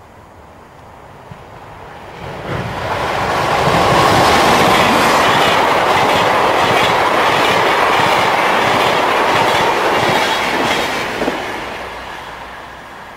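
Electric passenger train passing, its wheels clattering over the rail joints. It builds up from about two seconds in, is loudest in the middle, and fades away near the end.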